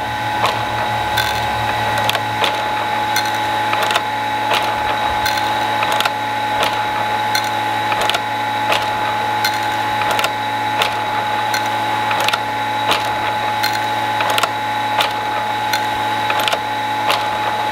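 Dinasaw TREX automatic chainsaw chain sharpening machine running its automatic cycle around the chain, lowering the rakers (depth gauges) a little each time. A steady whine from the grinder runs under a regular clack about every two-thirds of a second as it indexes and works tooth by tooth.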